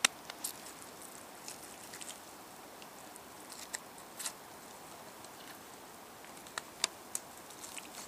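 Scattered small wet clicks and squelches of a pocket knife and hands cutting through elk meat around the hip joint, over a faint hiss; the sharpest click comes right at the start and a cluster of them near the end.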